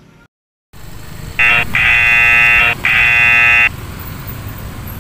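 Gojek driver app's new-order alert sounding from the phone: a loud, steady electronic tone in three bursts, one short and then two of about a second each, over street traffic noise.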